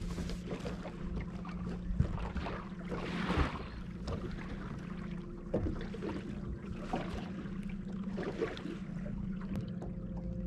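Boat motor running with a steady hum while the bass boat trolls slowly, with small waves slapping irregularly against the aluminium hull.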